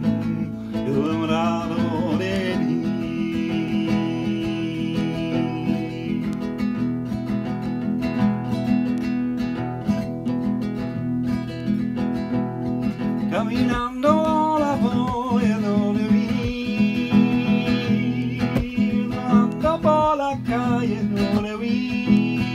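Acoustic guitar strummed and picked, with a man singing melody phrases over it, briefly near the start and again through the second half.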